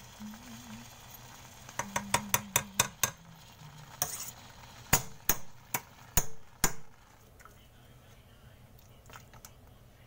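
A utensil knocking against a stainless steel saucepan while mashing and stirring thick sweet potato and oat porridge. There is a quick run of about seven sharp clinks around two seconds in, then five more, spaced further apart, a little later.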